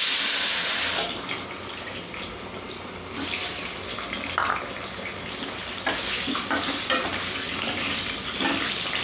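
Raw potato chunks sizzling in hot oil in a kadai as they are added: loud for about the first second, then cut off abruptly to a quieter, steady frying sizzle. Short clicks and scrapes come from pieces and a spatula knocking against the pan.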